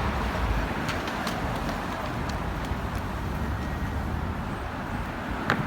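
Steady street traffic noise with a few short, sharp clicks, the loudest about five and a half seconds in.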